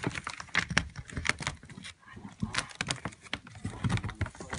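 A large paper bag crinkling and crackling in irregular bursts as a cat shifts and plays inside it.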